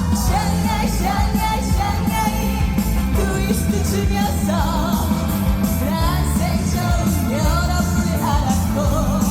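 A woman singing an upbeat trot song live over backing music with a steady beat.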